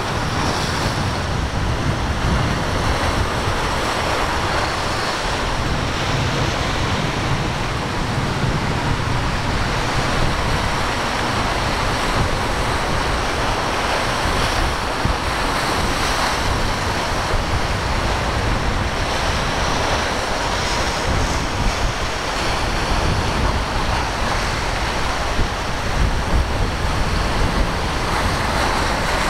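Steady rush of rough surf breaking in an inlet, with gusty wind buffeting the microphone.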